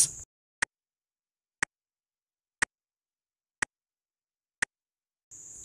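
Countdown timer sound effect ticking five times, one sharp tick a second.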